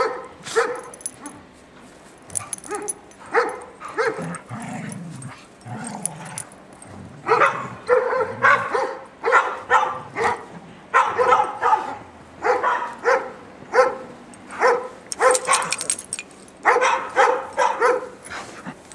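Two dogs, a Norwegian Elkhound and a young golden retriever mix, in rough play with repeated short barks and yips that come in quick clusters throughout.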